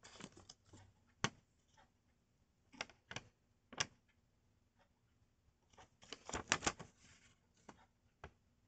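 A small paper pocket timetable card handled in the fingers: scattered rustles and sharp little paper clicks, with a denser flurry of rustling about six seconds in as the card is turned over.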